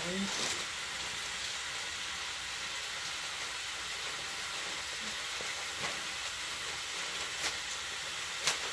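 Food sizzling in a covered frying pan on the stove: a steady, even hiss, with a few light clicks in the second half.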